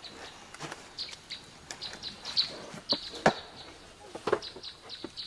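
Wooden planks of a pig pen knocking and clattering as they are handled and fitted, a scatter of sharp knocks, the loudest about three seconds in. Short, high bird chirps repeat throughout.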